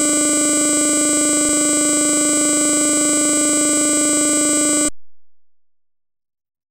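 A loud, steady synthesized electronic tone, one held pitch with no change, that cuts off suddenly about five seconds in; no sound from the scene itself.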